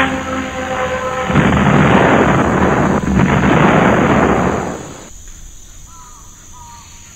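Comedy sound effects: a descending falling whistle fades out, then a loud rumbling crash like an explosion in two heavy blasts, each about a second and a half. Then it drops to faint cricket chirps.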